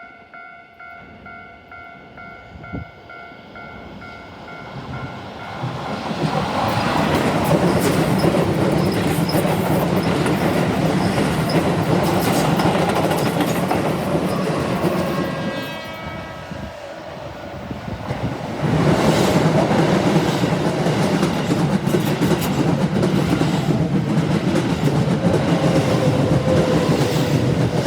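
Level crossing alarm ringing with a steady pulse, then a Keihan 7000 series electric train passing over the crossing with wheels clattering on the rails. It is loud from about six seconds in, eases briefly just past halfway, then is loud again to the end.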